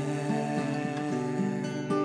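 Instrumental music between sung lines: acoustic guitar picking a run of single notes, with a fresh strum near the end.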